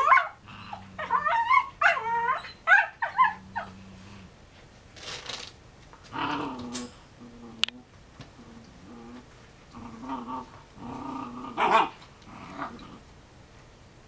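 Two Airedale Terrier puppies play-fighting, trading rapid high-pitched yips and whining play growls for the first four seconds, then quieter, lower growls with a louder burst near the end. A single sharp click comes about halfway through.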